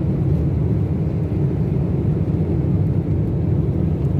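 Steady low rumble of a jet airliner's engines and rushing air, heard inside the passenger cabin during the climb after takeoff.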